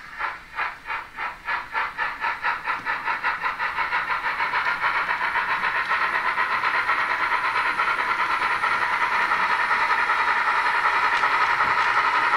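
Sound decoder of a Roco H0 model DB class 86 steam locomotive playing its exhaust chuffs through the model's small speaker. The beat starts at about three chuffs a second and quickens steadily until the chuffs run together into a fast, hissing beat, growing louder as the model accelerates.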